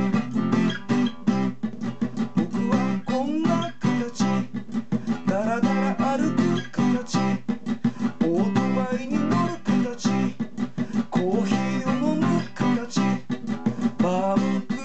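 Acoustic guitar strummed in a quick, steady rhythm, with a man singing over it in several phrases.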